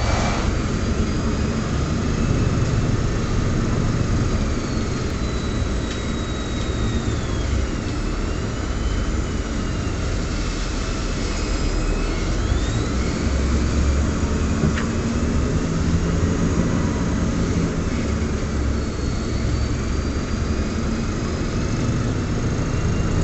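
An airport apron bus drives across the tarmac, heard from inside the cabin at the front: a steady low rumble of engine and tyres, with thin high whines that slowly rise and fall.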